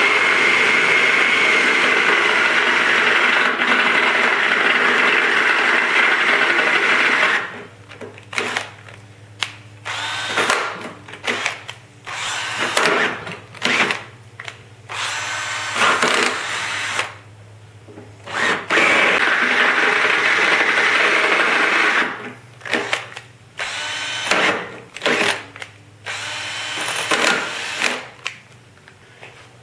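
Makita 18V cordless drill with a twist bit drilling into steel: it runs steadily for about seven seconds, then in many short bursts of the trigger, starting and stopping, until near the end.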